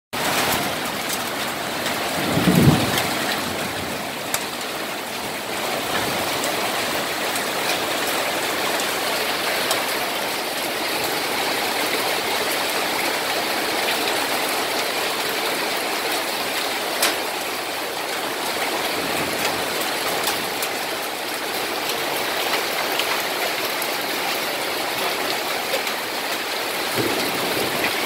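Hail and heavy rain pelting corrugated metal roof sheets: a dense, steady hiss of rain scattered with sharp clicks of hailstones striking the metal. There is a brief low rumble about two and a half seconds in.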